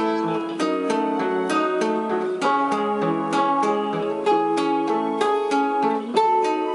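Nylon-string classical guitar played fingerstyle as a solo: a steady run of plucked single notes and broken chords, several a second, with earlier notes left ringing under new ones.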